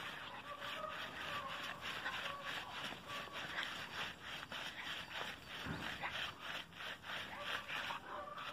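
Great Dane puppy digging with its front paws in loose, dry soil: a continuous run of quick scrapes, several a second, as the paws rake the dirt back.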